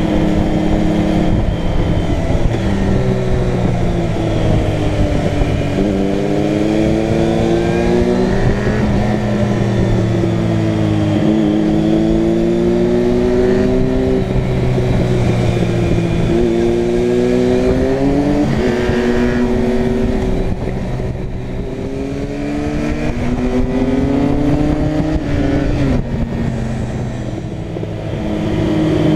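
Suzuki Bandit 600's inline-four engine heard from on board while riding: revs climb in long rises and drop sharply several times as gears are changed or the throttle is closed, over steady wind noise.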